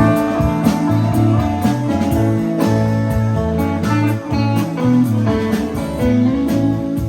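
Live band playing an instrumental passage: guitar lines over a bass line, with regular drum hits.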